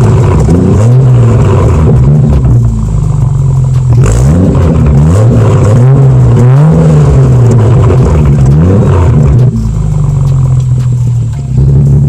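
BMW F30 3 Series car under way, its engine pulling through the gears: the pitch rises and falls back several times with each upshift, then holds steady near the end.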